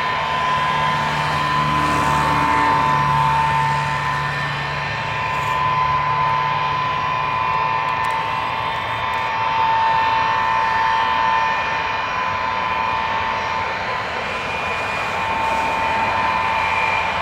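Four rear-mounted Soloviev D-30KU turbofans of an Ilyushin Il-62 jet airliner running as it rolls along the runway after landing: a steady whine near 1 kHz with a fainter higher tone over a broad rushing noise.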